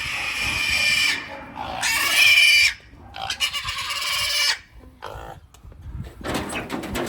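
Piglets squealing: a run of long, high-pitched shrieks over the first four and a half seconds, then fainter squeals. These are the distress cries of piglets being caught and held against a net.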